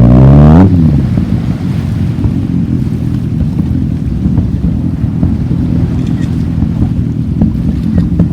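A motor vehicle passes close by in the first second, its engine note sliding down in pitch as it goes, followed by a steady low rumble of wind on the microphone.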